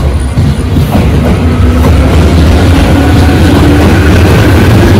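Tobu 10030-series electric commuter train passing close by and gathering speed: a heavy rumble of wheels on the rails with a motor whine that climbs slowly in pitch, getting louder over the first couple of seconds.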